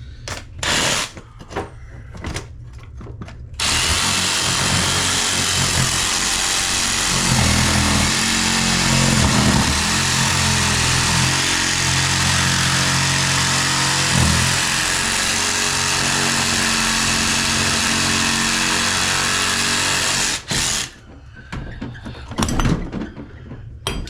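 Power saw running, cutting through a rusted-on faucet mounting nut, for about 17 seconds before stopping suddenly. A few sharp knocks come before it starts and after it stops.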